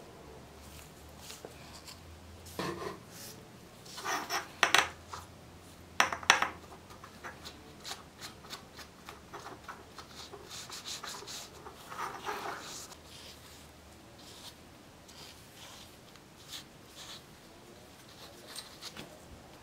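A cotton pad wet with cold gun-bluing solution rubbed back and forth over the bare steel of a bayonet scabbard, a light dry scraping. Over the first seven seconds there are a few louder, sharp clicks and clatters as the bottle and metal are handled, and a run of quick rubbing strokes near the middle.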